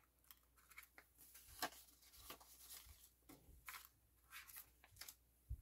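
Faint rustling and crinkling of Canadian polymer banknotes being pulled from an acrylic cash holder and handled, with scattered small clicks.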